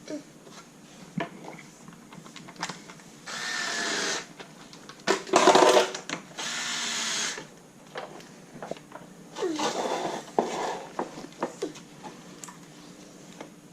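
Ryobi QuickTurn electric screwdriver running in several short runs of about a second each, the loudest about five seconds in, driving fasteners on the ATV's front end. Sharp clicks and knocks of tools and parts fall between the runs.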